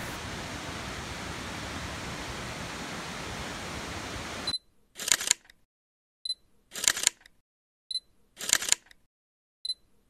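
Steady rushing of a distant waterfall, which cuts off about four and a half seconds in. Then a camera-shutter sound effect repeats four times, about every second and a half, each a small click followed by a louder shutter snap.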